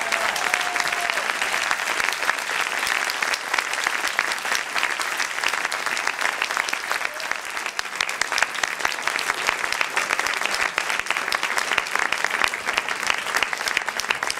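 Theatre audience applauding, a dense steady clapping that eases slightly about halfway through and picks up again.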